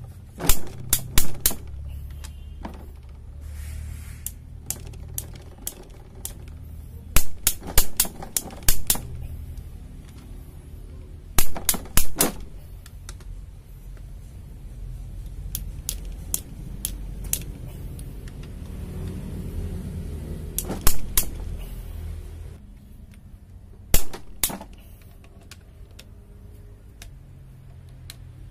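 Click-type torque wrench ratcheting and clicking in short, sharp bursts, several times over, as connecting rod cap bolts are tightened to 3.5 kgf·m; the click marks the set torque being reached.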